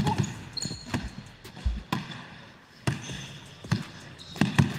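Basketball dribbled on a hardwood court: a handful of bounces, unevenly spaced roughly a second apart.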